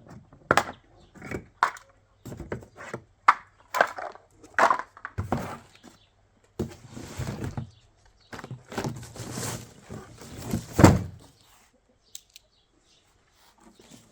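Handling of an electric lawn mower's box and parts during unpacking: irregular knocks, thuds and scraping rustles, with the heaviest thud about eleven seconds in, then a short lull.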